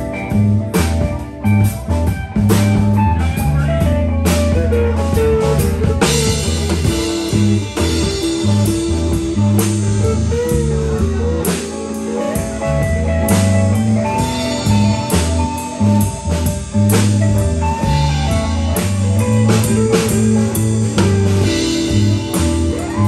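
Live band playing an instrumental passage: electric guitars, bass guitar and drum kit, with a steady beat. The cymbals get heavier about six seconds in.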